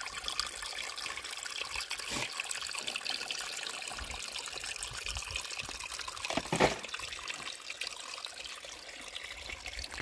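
A small stream of water trickling and burbling over gravel and rocks, running steadily, with a brief louder sound about six and a half seconds in.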